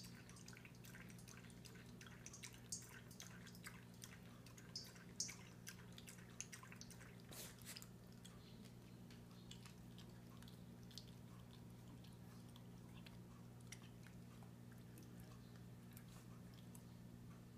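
Faint wet clicks and smacks of a small dachshund licking a stainless steel food bowl and chewing, over the first eight seconds or so, over a steady low hum.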